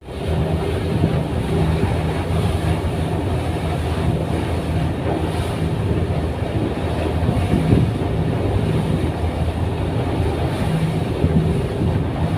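Fast boat's engines running steadily under way, a constant loud low drone with a steady hum, heard from inside the wheelhouse.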